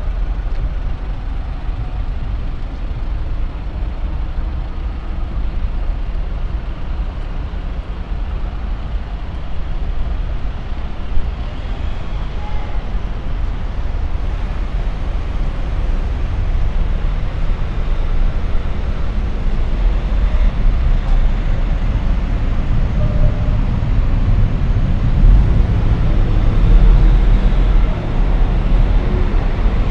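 City street traffic: a continuous low rumble of passing cars and buses, growing louder over the last several seconds.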